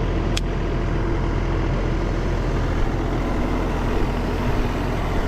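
ASV RT-40 skid steer's diesel engine running steadily. A brief falling squeak cuts in about half a second in.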